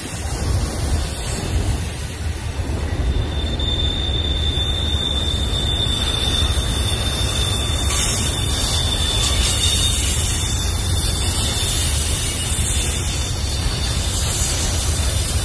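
Union Pacific double-stack intermodal train's loaded well cars rolling past with a steady low rumble of wheels on rail. A thin, high wheel squeal comes in about three seconds in and holds for several seconds.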